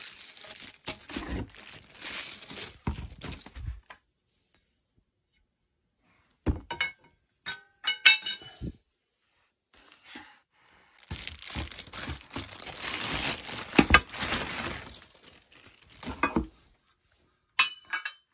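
Clear plastic wrapping rustling and crinkling while steel desk-frame parts of a Flexispot E7 Plus base are unpacked from a cardboard box, in bursts, with light metallic clinks as the parts knock together.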